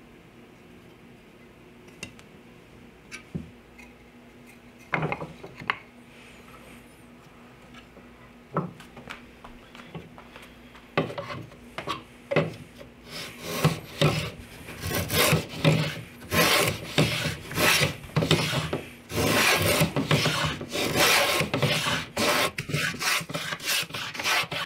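Moving fillister plane cutting a rabbet along a wooden strip: a few scattered clicks at first, then from about eleven seconds in, repeated hand-planing strokes that grow louder and come closer together.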